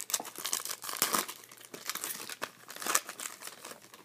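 A 2014 Bowman Chrome football card pack being torn open, its foil wrapper crinkling in a rapid run of crackles, with the loudest about a second in and about three seconds in.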